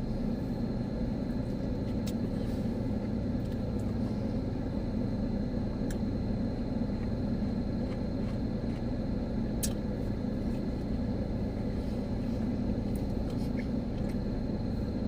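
Steady low rumble inside a car's cabin with the engine running, and a few faint clicks scattered through it.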